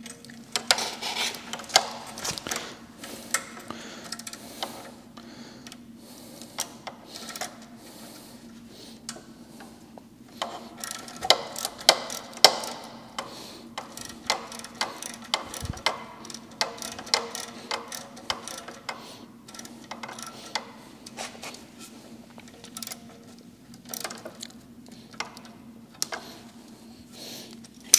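Socket ratchet clicking in quick runs with pauses between, as the exhaust's mounting bolt is undone.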